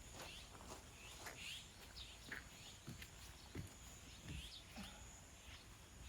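Faint, scattered short bird chirps with a few soft ticks over a very quiet background.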